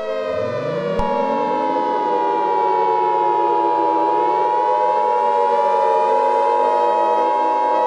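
Civil defense siren winding up from low and wailing, rising, falling slightly and rising again. About a second in, a loud steady Emergency Alert System attention tone comes in over it, with a steady low drone underneath.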